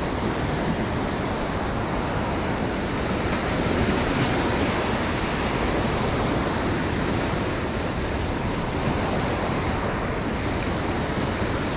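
Ocean surf breaking and washing on the beach, a steady wash with a gentle swell a few seconds in, mixed with wind on the microphone.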